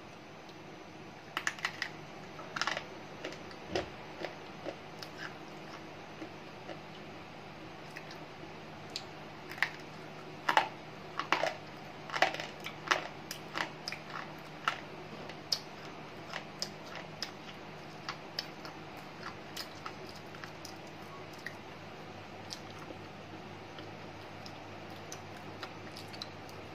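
Slate pencils clicking and clattering against one another as a handful of them is handled: scattered sharp clicks, busiest about ten to thirteen seconds in.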